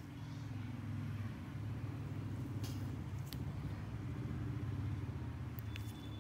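A motor running with a steady low hum, with a few faint clicks.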